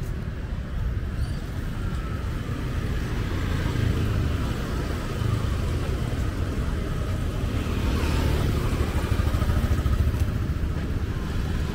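Steady rumble of a moving tuk-tuk's motorcycle engine and road noise, heard from the passenger carriage. It grows slightly louder in the second half.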